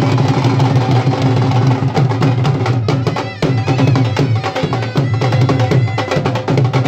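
Live dhol drums beating a fast, steady rhythm under a wind instrument playing the melody: loud traditional folk music.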